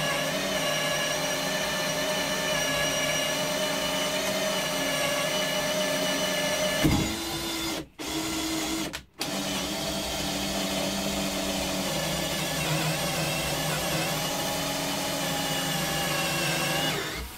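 Einhell TE-CD 18/40 Li cordless drill driver running in first (low) gear, boring a hole in a wooden block with a drill bit: a steady motor whine. It stops twice briefly about eight and nine seconds in, then runs on until near the end.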